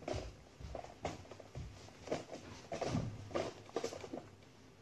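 Scattered rustling and light knocks from someone handling things at a kitchen counter, with no steady sound under them.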